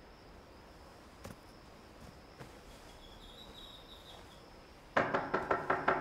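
A quick run of about eight loud knocks on a door in one second near the end, over a faint steady chirring of night insects.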